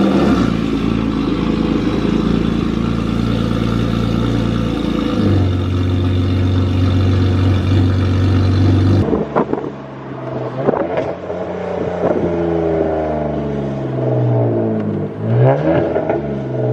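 BMW N52 inline-six with gutted primary and secondary catalytic converters and no resonator or muffler, essentially a straight pipe, running loud and steady just after start-up. About nine seconds in the sound changes, and the engine's pitch rises and falls repeatedly as it revs and accelerates.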